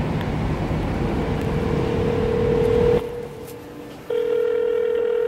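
Phone ringback tone heard through a smartphone while an outgoing call rings: a steady beep about two seconds long, then a short gap, then the next ring starting about four seconds in. A steady background noise lies under the first ring and stops about three seconds in.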